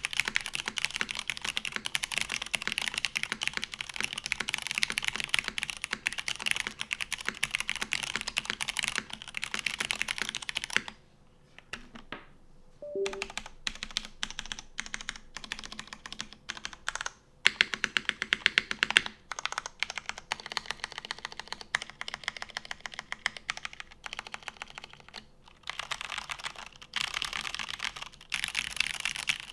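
Mechanical keyboard with stock Cherry MX Red linear switches (springs only oiled) on an aluminum plate in a polycarbonate case, with GMK keycaps, typed on quickly. The typing stops for about two seconds a little before the middle, then resumes, with a few louder single key strikes shortly after.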